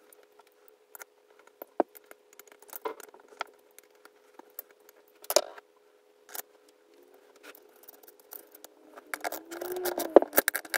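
Small metal tools and parts being handled: scattered clicks and knocks over a faint steady hum, turning into dense, rapid clicking and rattling near the end.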